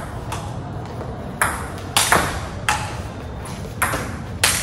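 Table tennis rally: the ball clicking sharply off the paddles and the table, about seven hits at an uneven rally pace, each trailing off briefly.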